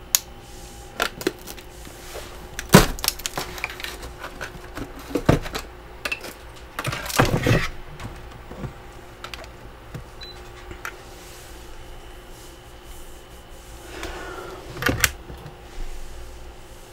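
Plastic humidifier being worked loose from packed freezer frost and lifted out: scattered sharp clicks and knocks of plastic against frost and ice, a longer scraping burst about seven seconds in, and a knock near the end as it is set down.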